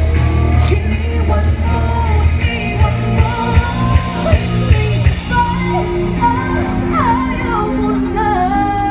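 Live rock band performance: a lead singer over electric guitar, bass and drums, heard as a fan's phone recording from the crowd.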